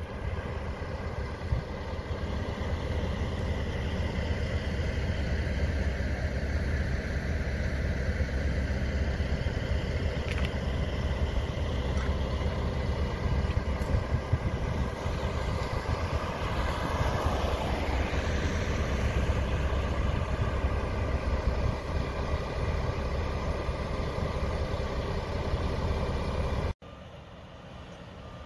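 Heavy diesel tow-truck engines running steadily with a low rumble. About two-thirds of the way through, a louder sound swells and fades. Near the end the level drops abruptly to a quieter steady hum.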